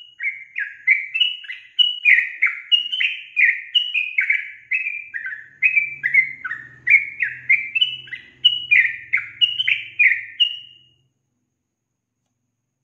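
Yellow-vented bulbul (trucukan) singing a long run of quick phrases, each note dropping in pitch, about two a second, stopping about eleven seconds in.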